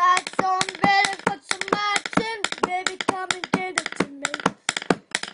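A young boy singing in held, sliding notes without clear words, while tapping out a quick, uneven beat with a pencil on a hard surface as a makeshift drumstick.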